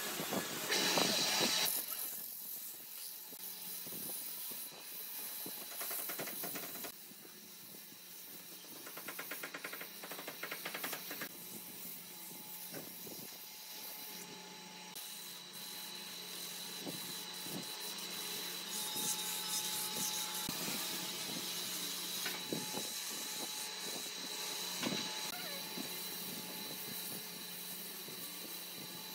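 Wood lathe running: a steady motor hum under the hissing, scraping noise of the spinning wood being worked, with scattered clicks.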